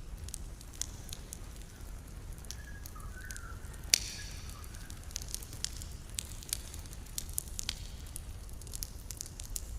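Campfire burning, crackling with irregular small pops and one loud sharp pop about four seconds in, over a steady low rumble.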